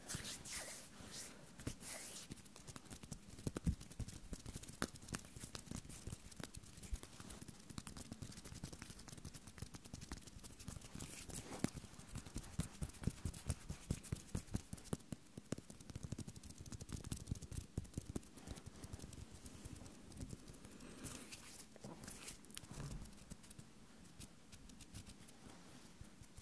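Hands rubbing and fidgeting, palms and fingers working against each other, making a continuous run of soft crackles, rustles and small clicks.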